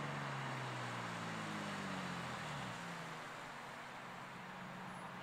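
A tuned Toyota Supra Mk4 and another sports car driving slowly past on a wet road. A low engine exhaust note sinks gently in pitch over the first few seconds, then holds steady, over a hiss of tyres on wet tarmac.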